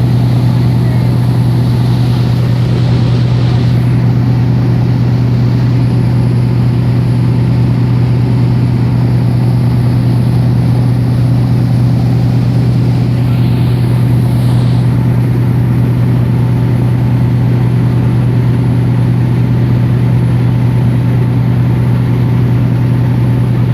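Express passenger boat's engine running steadily at cruising speed: a constant low drone with a strong hum, never changing in pitch or loudness.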